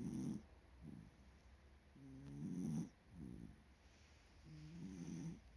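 Miniature dachshund snoring in its sleep: three snores about two and a half seconds apart, each followed by a softer breath out. The owner links the heavy snoring to a stuffy nose.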